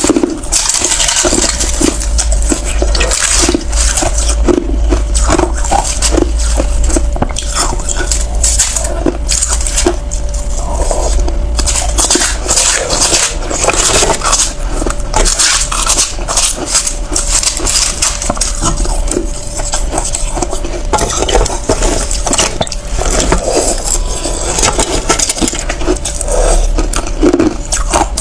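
A person biting and chewing ice close to the microphone: a continuous run of loud, irregular crunches and crackles with no pause.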